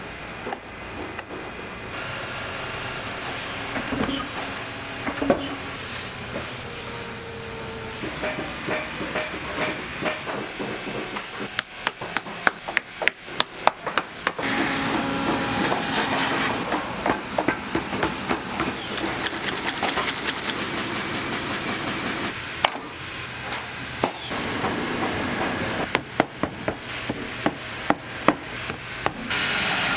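Workshop sounds of a leather work boot being torn down for a rebuild: a run of sharp hammer knocks and taps, thickest about a third of the way in, between stretches of steady hissing noise.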